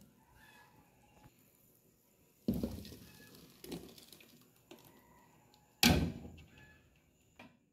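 A few sudden knocks as blended tomato mixture is poured from a jug into an aluminium pot of cut yam. The louder knocks come about two and a half seconds in and again about six seconds in, each fading within a second, with softer ticks between.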